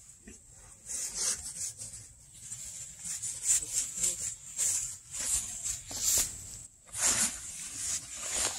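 Long grass rustling and swishing in irregular bursts as a dog rolls and wriggles on its back in it.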